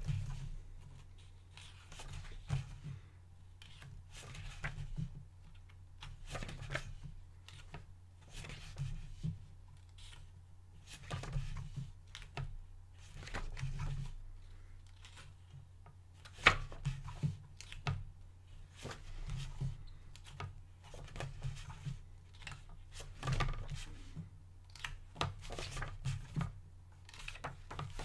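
Pages of a hardcover art book being turned by hand: a long series of short paper flips and rustles, over a low steady hum.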